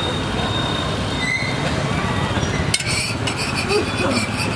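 Busy street-stall background: a steady hum of traffic and crowd. About three seconds in, a run of sharp clinks and clatter of metal utensils and dishes begins.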